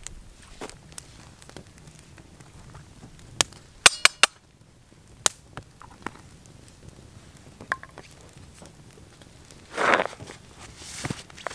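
Wood campfire crackling with sharp pops, a quick run of loud pops about four seconds in. After that come quieter handling ticks, then a short rasping scrape near the end.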